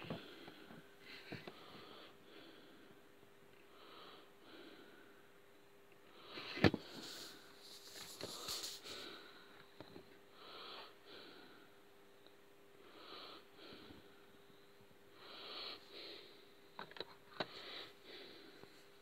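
A person breathing and sniffing close to the microphone, a soft breath every second or two, with a few handling clicks, one sharp click about six and a half seconds in, and a faint steady hum underneath.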